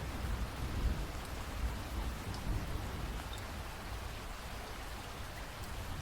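Steady rain falling, with a low rumble that is heaviest in the first couple of seconds and then eases.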